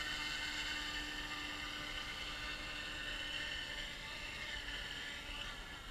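Small electric RC scale helicopter (Eachine UH-60 Blackhawk) whirring steadily with a high whine from its motors and rotors while it is brought in to land, getting gradually quieter toward the end.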